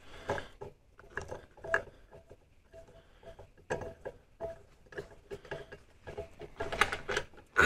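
Irregular light clicks, taps and scrapes from the air cleaner housing as it is worked open by hand to take out the old air filter element, with a busier, louder cluster near the end.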